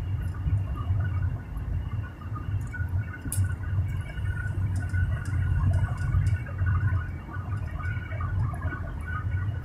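A car driving on a highway, heard from inside the cabin: a steady low rumble of engine and road noise, with a few faint ticks and one sharper click about three seconds in.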